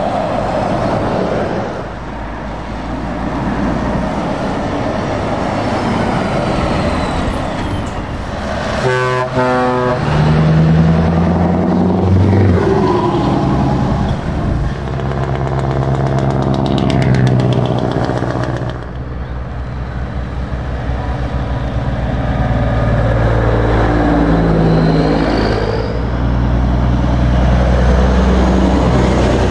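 A procession of diesel lorry tractor units passing one after another on a wet road. The engines and tyre hiss rise and fall as each truck goes by, with a short pitched blast about nine seconds in.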